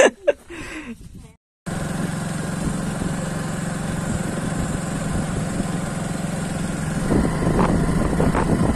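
Motorcycle engine running steadily while riding along a road, with wind rush, starting after a brief silent break about a second and a half in.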